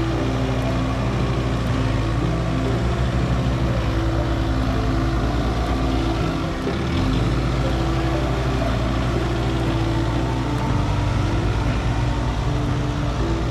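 Motor vehicle engine running steadily with road noise, easing briefly about six and a half seconds in.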